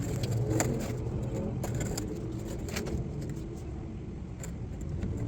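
A 32 mm socket and bar on a truck differential's pinion nut being forced loose with a boot, giving a few faint metal clicks and creaks over a low, steady hum.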